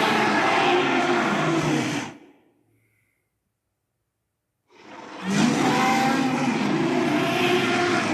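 Carcharodontosaurus roar sound effect: a long, rough, low roar that dies away about two seconds in, then after a short silence a second long roar from about five seconds in.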